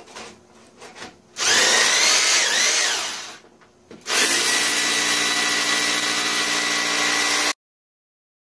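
Corded Bosch drill boring holes into rock. After a few light knocks it runs for about two seconds, stops briefly, then runs again steadily with a whine and cuts off suddenly near the end.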